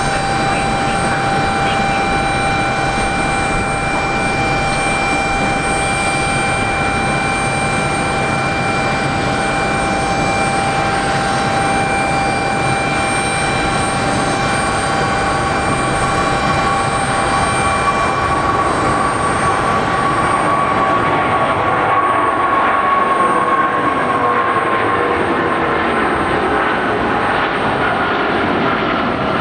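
Boeing 777-200's two Pratt & Whitney PW4074 turbofans at takeoff thrust: a continuous jet rush with several steady whining fan tones as the airliner rolls down the runway and lifts off. In the second half the whine slides slowly lower in pitch and the hiss thins out as the aircraft climbs past.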